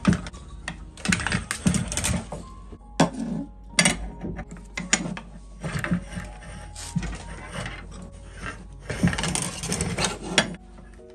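Gold wire being drawn through a tungsten carbide drawplate with pliers: a series of irregular scraping, grating pulls with sharp clicks, the longest about nine seconds in.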